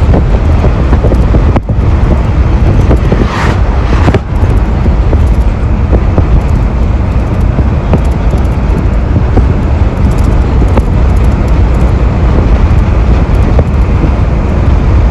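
Steady rumble and wind noise of a moving road vehicle, with a brief rush of noise about three and a half seconds in.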